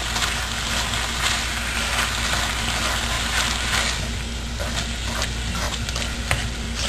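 Chicken and cucumber strips sizzling in a hot wok while being stir-fried, with frequent light clicks of chopsticks against the pan as they are stirred.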